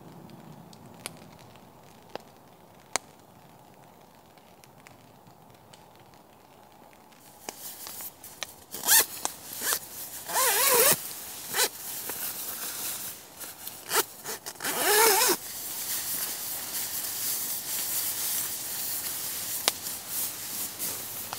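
Several zipper pulls with fabric handling between them, two of the pulls long; the first third is quiet apart from a few light clicks.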